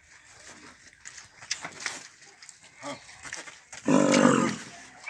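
A Nelore cow gives one short, loud moo about four seconds in, with faint knocks and scuffs before it.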